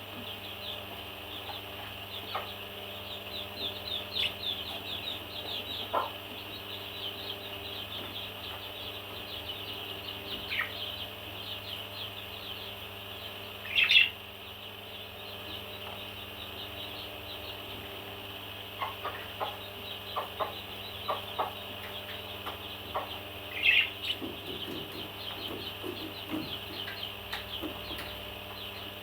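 Pet parrot chattering with rapid, continuous high chirps, breaking into a loud squawk twice, about halfway through and again about two-thirds through. A run of small taps or clicks is heard in between.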